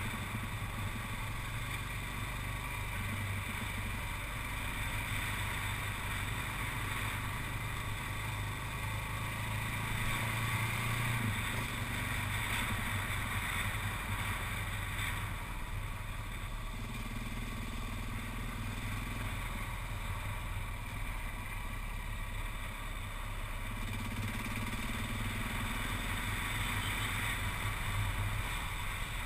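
Motorcycle engine running at a fairly steady cruise, a low, even hum that holds without sharp revs, over a steady rushing noise.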